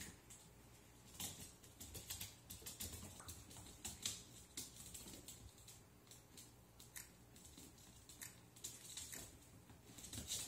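Faint, quick, irregular clicking and scrabbling of an American Eskimo puppy's and a Pomeranian puppy's claws on a hardwood floor as they play-fight, over a low steady hum.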